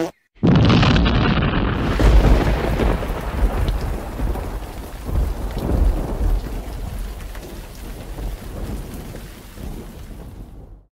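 Thunderstorm: thunder breaks in suddenly and rumbles, loudest about two seconds in, then rolls on and slowly fades under steady rain.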